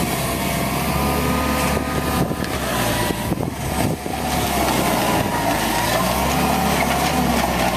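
Hitachi EX120 hydraulic excavator running: a steady diesel engine drone with a whine that wavers in pitch. There is a brief dip in level about three to four seconds in.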